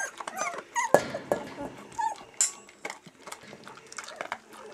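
Dog crunching dry kibble, with irregular sharp crunches throughout, and a few short high whimpers from a young puppy, most in the first second.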